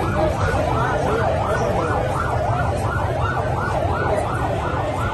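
Emergency vehicle siren in a fast yelp, its pitch rising and falling about three times a second, over a low steady rumble.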